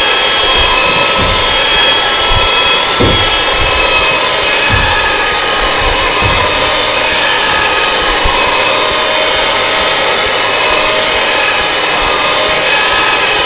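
Philips electric hand mixer running steadily with a whine, its beaters working through crumbly bread dough of flour, egg and butter in a plastic bowl, with a few low knocks in the first half.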